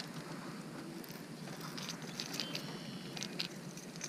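Faint handling sounds: scattered small clicks and ticks of a crankbait's treble hooks and the fish being handled while the lure is worked out of a largemouth bass's mouth, over a steady low background hiss.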